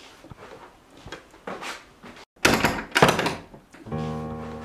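A door thudding shut: two dull thumps about half a second apart, about two and a half seconds in. Near the end a steady held music chord comes in.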